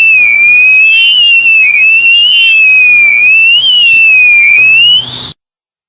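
Electronic emergency-alert alarm tone: a single loud, high, whistle-like pitch that swoops down and back up in a repeating wave, a little more than once a second. It cuts off suddenly about five seconds in.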